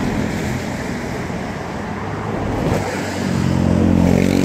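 A motor vehicle's engine running close by over road traffic noise; the engine's steady hum grows louder about three seconds in.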